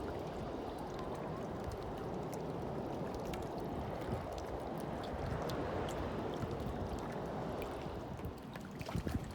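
Water rushing and gurgling steadily along the hull of a trimaran under way on a quiet 500 W electric outboard, with no engine note.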